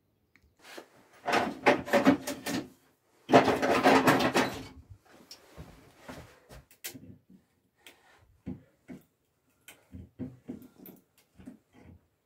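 Tools and parts being handled on a wooden workbench: a loud clatter of knocks and rattles in the first few seconds, then scattered light knocks and taps.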